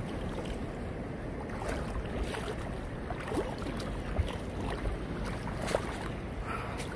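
Feet wading through shallow seawater, the water splashing softly, with a steady buffeting of wind on the microphone.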